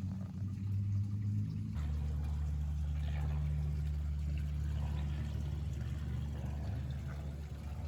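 Pond water splashing and trickling over a steady low rumble. The rumble shifts pitch about two seconds in, and the splashing grows busier from then on.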